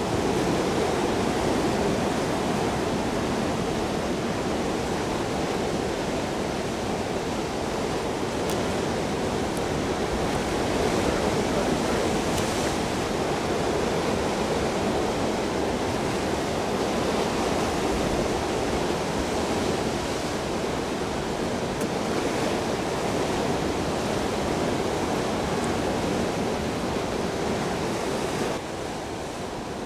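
Ocean surf washing against a rocky shore, a steady rushing noise that drops suddenly near the end.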